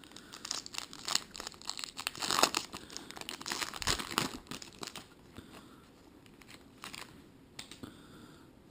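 Trading card pack wrapper being torn open and crinkled by hand, with dense crackling for the first few seconds that thins out to a few scattered crinkles.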